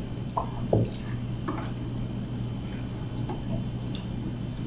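Faint wet eating sounds, chewing and small clicks of utensils or dishes, scattered over a steady low hum.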